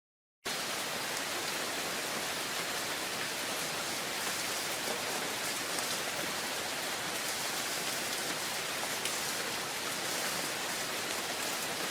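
Steady rain, an even hiss of falling drops, cutting in abruptly from dead silence about half a second in.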